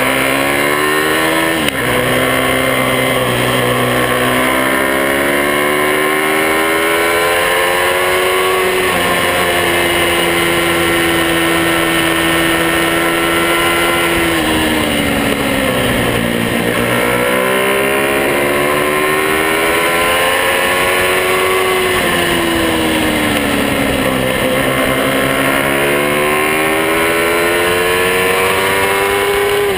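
Small Monkey-bike motorcycle engine running under way, its revs climbing and falling repeatedly. There is a quick drop about two seconds in, and the revs hold steady for several seconds around the middle.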